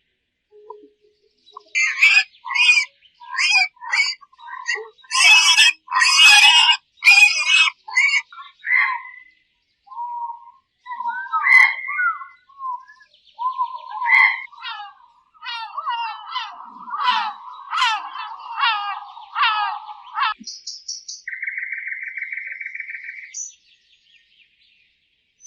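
A string of different animal calls, mostly bird-like: sharp chirps and harsh squawks, then fast warbling chirps, and near the end a short buzzy trill.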